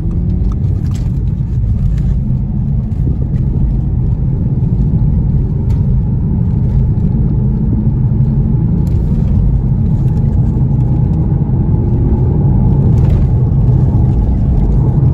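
Audi TT heard from inside the cabin, accelerating through the gears up to about 50 mph. Its engine and road noise make a steady low rumble, and the engine note rises as it pulls.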